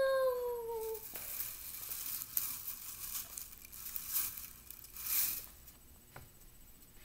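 A child's held, slightly falling hum for about the first second, then crinkling and rustling from something being handled close to the microphone for a few seconds, fading out well before the end.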